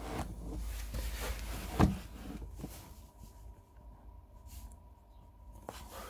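Handling noise from a phone camera being moved and set up: a low rumble and rustling, with a sharp knock about two seconds in, then quieter, with a faint steady high tone in the second half.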